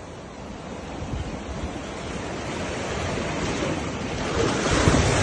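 Sea waves surging in and foaming against a stone sea wall, growing steadily louder as a swell rises up the wall, with wind buffeting the microphone.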